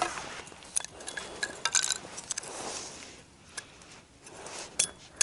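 Scattered light clicks and knocks of a blade splitting small wooden splinters into kindling, with the sharpest two near the end.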